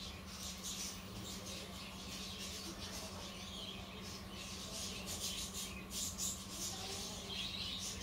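Small birds chirping and squeaking in quick, irregular high-pitched calls, busiest about two-thirds of the way through, over a faint steady hum.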